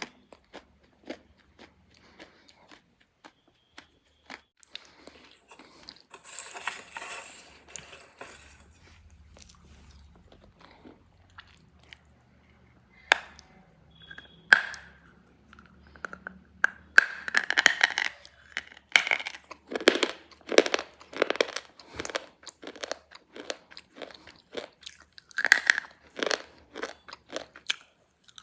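Black slate pencils being bitten and chewed close to the microphone: scattered crisp crunches at first, then rapid, loud crunching through the second half.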